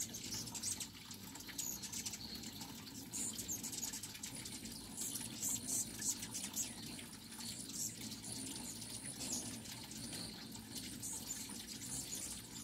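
A swarm of hummingbirds: a steady low hum of many beating wings, with many quick, high chips and buzzy twitters coming irregularly throughout.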